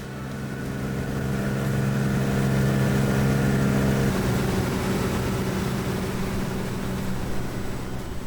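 An engine running at a steady pitch, its tone changing slightly about four seconds in.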